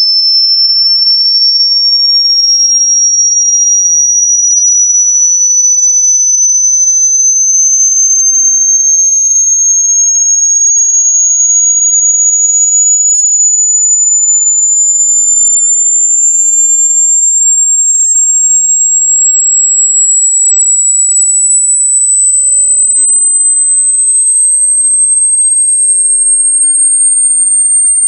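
A single very high-pitched, loud electronic sine tone, held without a break and gliding slowly upward in pitch.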